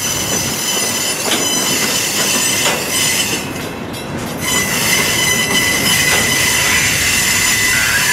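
Freight cars, steel coal hoppers and a gondola, rolling close past: steel wheels grinding on the rail with a few clacks, and a steady high wheel squeal that grows stronger about halfway through.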